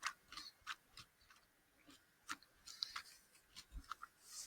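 Faint, scattered wet mouth clicks from chewing a gummy candy fry.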